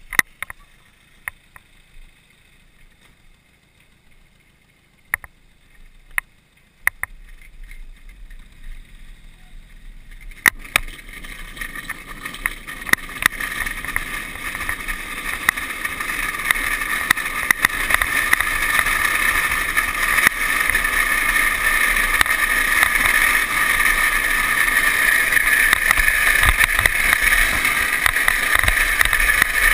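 Drift trike rolling down asphalt at speed, its hard plastic-sleeved rear wheels rasping on the road with wind rushing past. After a few clicks early on, the rushing starts about a third of the way in and grows steadily louder as the trike gathers speed, then holds loud.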